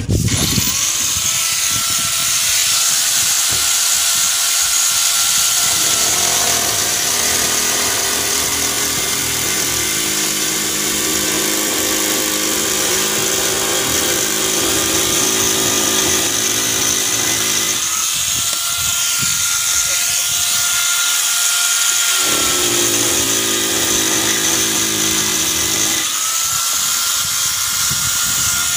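Corded electric angle grinder switching on and whining up to speed, then pressed to the painted wooden boat deck to sand it: twice, from about six to eighteen seconds in and again from about twenty-two to twenty-six seconds, its motor pitch drops under the load and rises again when lifted off.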